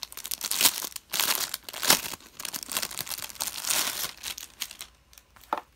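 Clear plastic wrapping crinkling and rustling as a fabric zipper pouch is slid out of it, with sharp crackles about a second and two seconds in. The handling quietens about five seconds in, leaving a single click.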